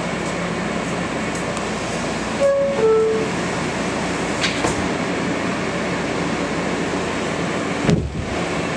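Inside an R160A subway car: steady interior running noise, with a two-note falling chime about two and a half seconds in as the doors shut, then the train pulling out of the station, and a sharp knock near the end.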